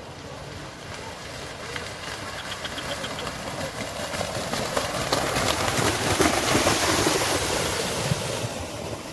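A pair of racing bulls splashing through the flooded mud of a rice field, a rushing, splashing noise that swells to its loudest about six seconds in and then eases off.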